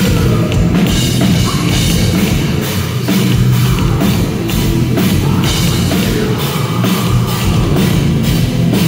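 A metal band playing live: heavy rock with a pounding drum kit, loud and continuous without a break.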